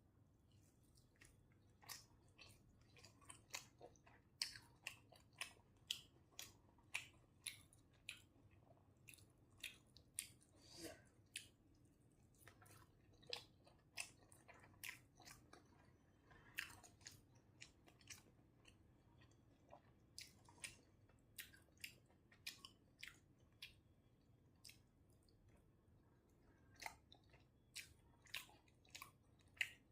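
Close-up chewing and eating mouth sounds from a rice, dal and egg meal: irregular soft wet clicks and smacks, about one or two a second, over a faint room hum.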